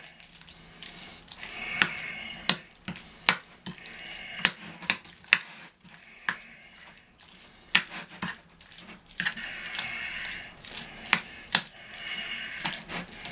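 Cottage cheese mixed with egg being squeezed and mashed by hand on a plate: wet squelching in short spells, with sharp clicks scattered through.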